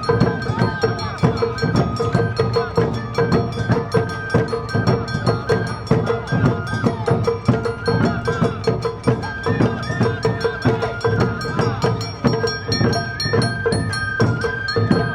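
Awa Odori festival band music: a high bamboo flute melody over a steadily ringing hand gong and a regular beat of drums and percussion.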